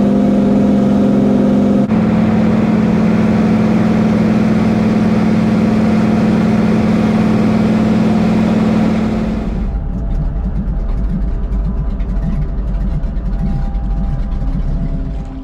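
Engine of a motor vehicle running steadily, a loud hum with a noisy rush over it. About nine and a half seconds in the hum and rush fall away, leaving a lower, quieter rumble.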